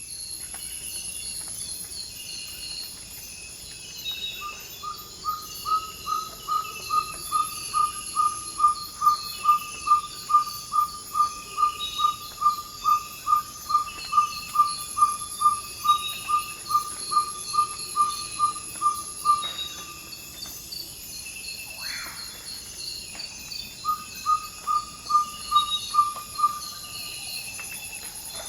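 Ferruginous pygmy owl giving its territorial advertising call: a long series of short, even 'toop' whistles, about three a second, then a shorter second series after a pause, over a steady high-pitched insect chorus.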